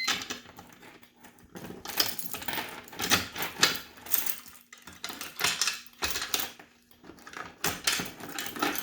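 Keys jangling and small metal parts clicking and rattling as they are handled, in irregular bursts with short pauses.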